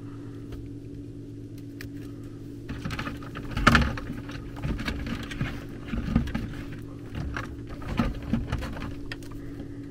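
Rustling, clicking and light knocking as thermostat wires are handled and pushed into the terminals of a plastic Honeywell HZ322 zone panel. The handling starts about three seconds in, with the loudest knock near the four-second mark, over a steady low hum.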